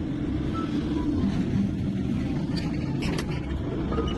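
A heavy vehicle or machine engine running steadily, with a few knocks about three seconds in.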